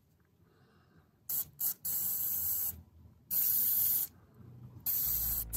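Aerosol spray can hissing in bursts through a straw nozzle into the ports of a cylinder head: two short puffs, then three longer sprays of under a second each.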